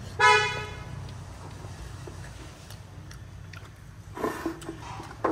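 A short vehicle horn toot, one steady note lasting about half a second, starts a quarter second in over a steady low hum. Faint clicks of chewing on meat and bone follow.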